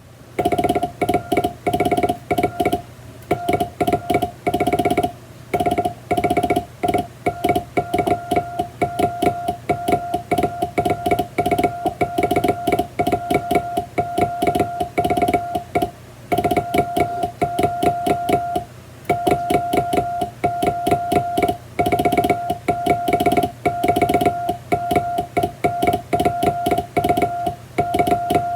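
Morse code sent by hand on a straight telegraph key: a steady mid-pitched beep keyed on and off in quick dots and longer dashes, spelling out English-alphabet Morse with short gaps between characters, over a faint constant hum.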